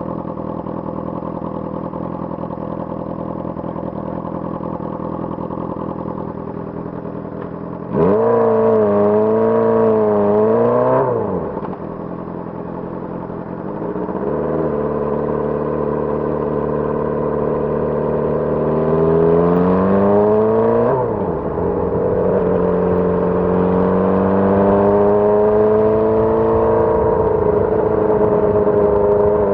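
Honda CBR600RR inline-four engine idling, then revved: a sudden jump in revs about eight seconds in, held unsteadily for about three seconds and dropping back, followed by two slower climbs in revs with a drop between them.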